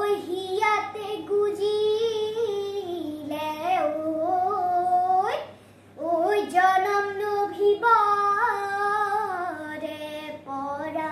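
A young girl singing a Bihu song unaccompanied, in two long phrases of held, sliding notes with a short break about halfway.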